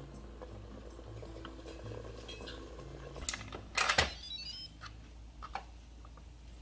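Instant Pot Nova lid being set on the pot and twisted shut: a click, then a short metal clatter about four seconds in, followed by a brief high ringing.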